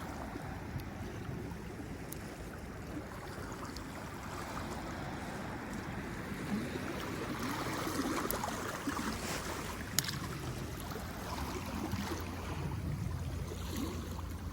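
Sea water lapping and washing, with wind noise on the microphone and a single sharp click about ten seconds in.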